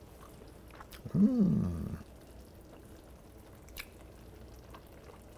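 A man's short single-syllable vocal sound, like a hummed 'mmm', about a second in, its pitch rising then falling. The rest is faint background with a couple of soft clicks.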